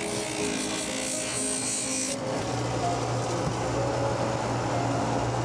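Rubber boot sole edge pressed against a motor-driven abrasive sanding wheel, a high grinding hiss that cuts off suddenly about two seconds in, over background music.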